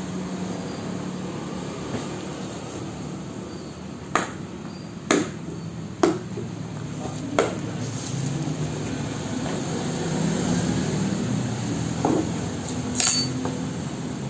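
Six sharp knocks and clinks, spaced irregularly, over a steady low hum.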